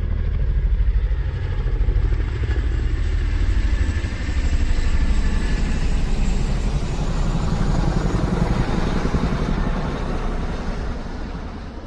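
A motor vehicle engine running with a fast, low pulsing, which fades away over the last couple of seconds.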